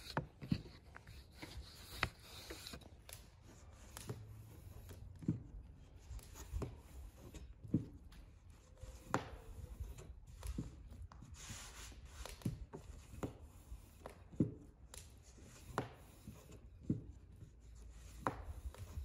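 Wooden rolling pin rubbing over thin dough on a floured wooden board. Then a metal spoon spreads meat filling over a rolled-out dough round, with soft scrapes and light taps about once a second.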